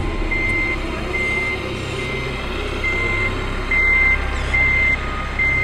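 Electronic reversing beeper of a radio-controlled model truck: a steady high beep repeating about seven times, a little under a second apart, over a low rumble.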